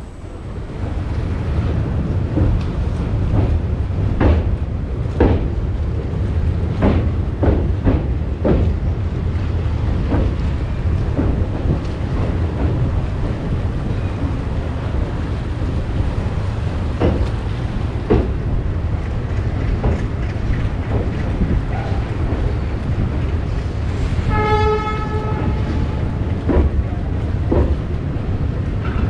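Diesel-hauled passenger train running, heard from on board: a steady low rumble with repeated knocks of the wheels over rail joints. The locomotive's horn sounds once, briefly, near the end.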